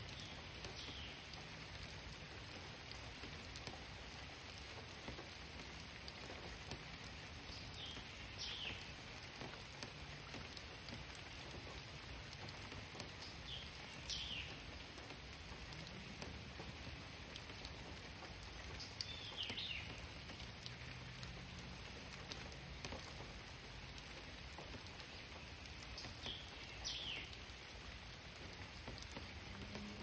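Steady rain falling on forest foliage, with scattered louder drops striking close by. A bird gives a short call of falling notes five times, every six seconds or so.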